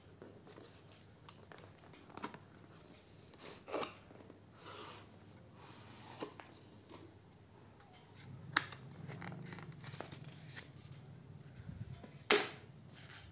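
A cardboard smartphone retail box being handled and opened: scattered rustles, scrapes and short clicks of card on card as the lid comes off, the sharpest click about twelve seconds in.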